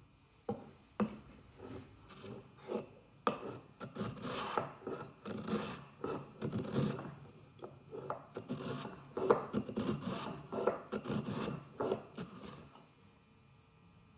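Small Japanese hand plane cutting a chamfer along the edge of a wooden mallet head, in a quick series of short rasping strokes that stop near the end.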